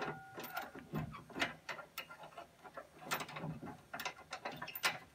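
Irregular metal clicks and clinks as the chain on a trailer hitch's spring bar is handled and reset to a shorter length, four links showing.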